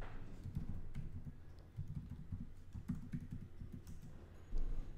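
Typing on a computer keyboard as a user name and password are entered: irregular runs of key presses with short pauses, and a heavier thump near the end.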